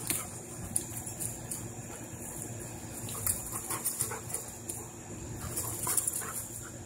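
Two dogs play-fighting: scuffling and short, sharp sounds scattered throughout, with a few brief dog vocal noises.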